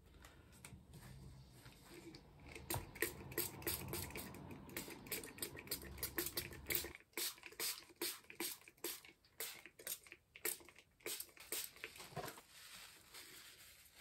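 Quick, irregular run of taps, clicks and rustles as a paintbrush and the stiff, painted pages of an art journal are handled on a tabletop, with a low handling rumble under the first half that stops about halfway through.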